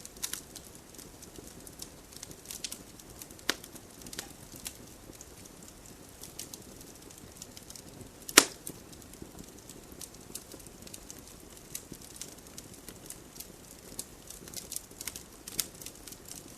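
Wood campfire crackling: scattered sharp pops and snaps over a low steady hiss, with one loud pop a little past the middle.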